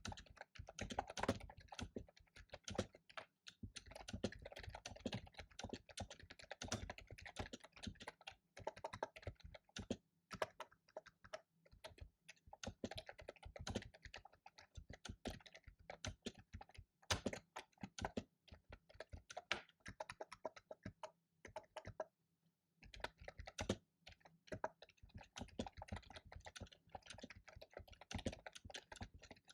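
Fast typing on a computer keyboard: rapid runs of keystrokes broken by short pauses, the longest pause about three-quarters of the way through.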